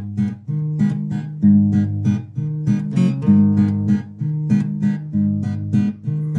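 Acoustic guitar strummed in a steady rhythm, playing the chords of the song's intro.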